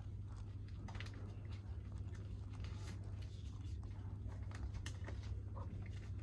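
Faint room tone in a market stall: a steady low hum with scattered small rustles and clicks, such as come from banknotes and cloth being handled.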